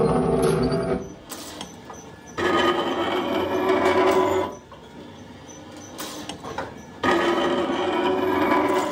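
A workshop machine running in repeated stretches of about two seconds, with quieter pauses between them.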